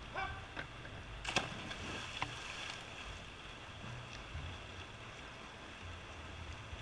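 Pool water lapping and splashing against the wall and starting block, with a low rumble underneath and two sharp knocks about a second and two seconds in.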